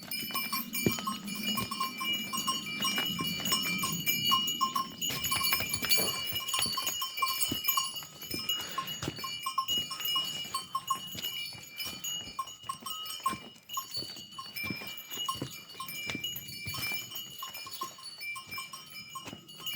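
Bells on a small herd of livestock tinkling and clinking on and off as the animals are driven out to graze, with scattered short knocks among them.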